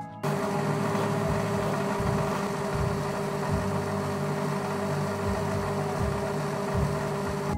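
Metal lathe running steadily, a constant motor and gear hum with a held whine, while a hand file is held against the spinning mild-steel part.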